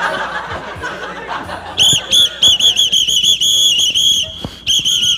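A whistle blown in rapid trilling blasts, starting a little under two seconds in and going on with one short break near the end.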